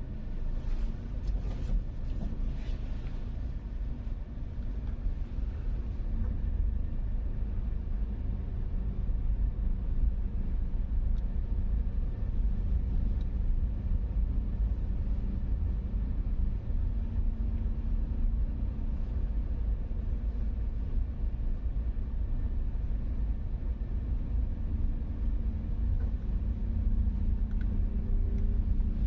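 Engine and road noise heard inside a small car's cabin as it drives along a straight road: a steady low rumble that grows a little louder several seconds in, with a faint engine hum coming up in the second half.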